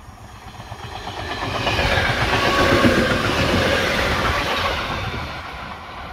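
EN57 electric multiple unit passing close by, its rumble and the clatter of its wheels on the rails swelling to a peak about three seconds in, then fading as it draws away.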